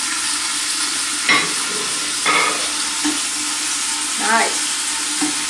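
Chicken, spices and tomato paste sizzling steadily in a stainless steel pot while a spatula stirs and scrapes through them, with a couple of sharp knocks of the spatula about one and two seconds in.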